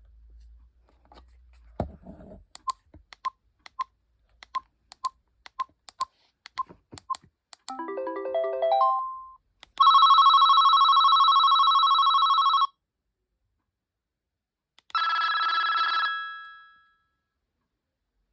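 GreenLyca GL70281 telephone stepping through its ringtones: a series of short key beeps about two a second, then a quick rising electronic melody. A loud warbling electronic ring follows for about three seconds, and after a pause a shorter ring plays and fades out.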